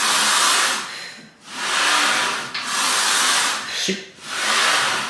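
Heavy breathing from exertion during weight-training reps: loud, hissing breaths in a steady rhythm, about one every second and a half, with a brief voiced sound about four seconds in.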